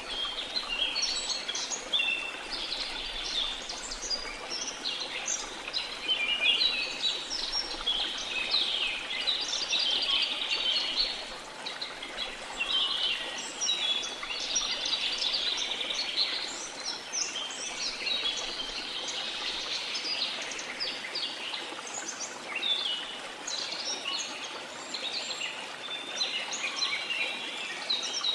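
Many small songbirds chirping and singing continuously in an overlapping chorus, over a steady wash of sea noise.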